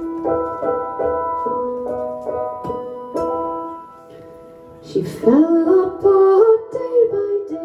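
Live song intro: piano or keyboard chords ringing out, and from about five seconds in a female voice joins with wordless singing that slides between notes, louder than the keyboard.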